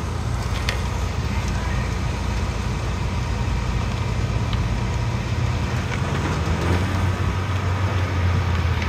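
Subaru WRX's flat-four engine running at a low, steady idle-like rumble as the car rolls slowly closer, growing gradually louder toward the end.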